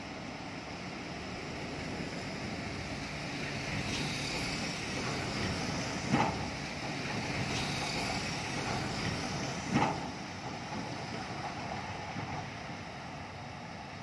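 Heavy earthmoving machinery running with a steady diesel drone, broken by two sharp knocks about six and ten seconds in.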